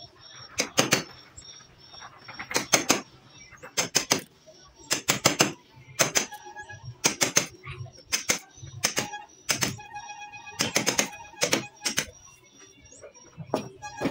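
Hammer striking a wood chisel as it cuts a joint into an ulin (Borneo ironwood) beam: sharp knocks in quick groups of two or three, about one group a second.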